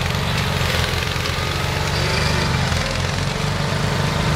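A small combustion engine running steadily with a rapid low throb, over a noisy din.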